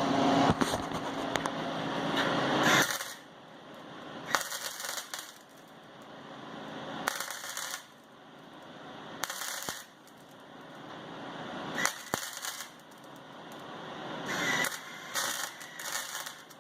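Welding arc crackling and spitting in about six separate runs, each started and stopped again. The first run is the longest, nearly three seconds, and the later ones last about a second each.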